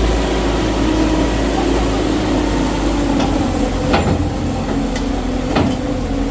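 A machine engine running steadily, with several sharp knocks in the second half.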